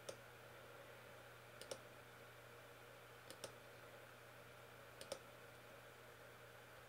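Computer mouse button clicked four times, evenly about every second and a half to two seconds; each click is a quick double tick of press and release. Faint steady hum of room tone underneath.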